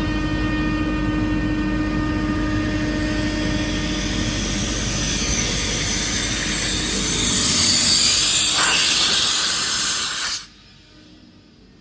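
Atlas Copco GA 7P 7.5 kW rotary screw air compressor running under load while it builds pressure, a steady hum with several steady whining tones. A rushing hiss grows louder over the second half, and the sound drops away sharply about ten seconds in.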